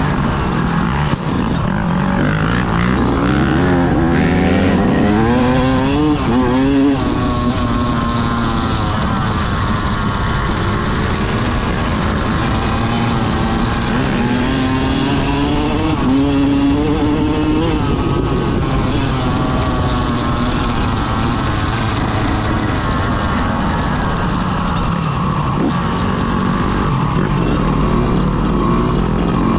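Yamaha YZ125X two-stroke single-cylinder dirt bike engine running under way, its revs climbing and dropping repeatedly, with the clearest rises from about two seconds in and again about halfway through.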